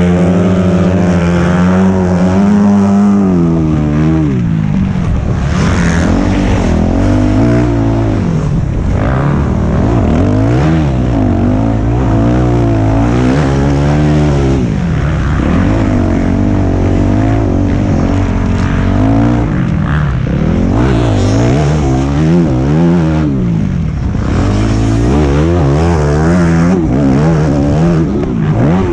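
Motocross bike engine at race pace, heard from on the bike, revving hard and dropping back again and again as the rider accelerates out of corners and shifts gears over rough dirt.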